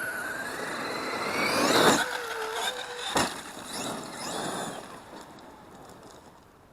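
Traxxas X-Maxx RC monster truck's electric motor and drivetrain whining and rising in pitch as it accelerates, with a loud thump about two seconds in and a sharper knock about a second later. The whine then fades as the truck moves away.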